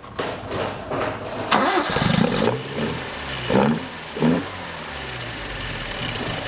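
Alfa Romeo Giulia Super's twin-cam four-cylinder engine being cranked and firing up for the first time on a newly fitted 123 electronic ignition. It is revved in three short blips, then settles into a steady idle.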